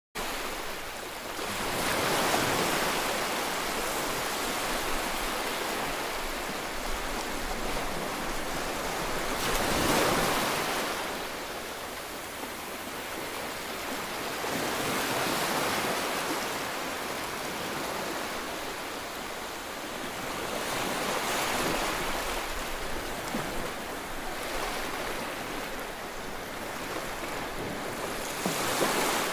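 Ocean waves washing in: a steady hiss that swells and fades in slow surges every several seconds.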